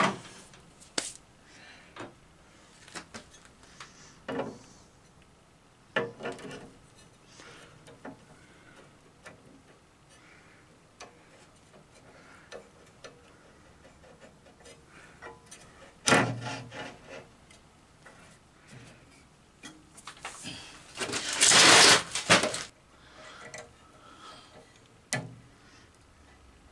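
Metal parts of a homemade roller-bearing blade guide assembly handled and fitted to a bandsaw: scattered clicks and knocks, a louder clatter about 16 seconds in, and a longer scraping rub of about two seconds roughly three quarters of the way through.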